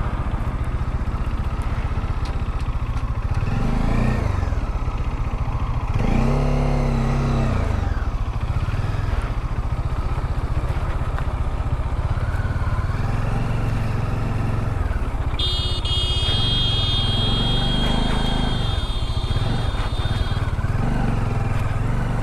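Bajaj Dominar 400's single-cylinder engine running under way, with wind and road noise, its revs rising and falling a few times, most clearly about four and seven seconds in. A steady high-pitched tone sounds for about five seconds past the middle.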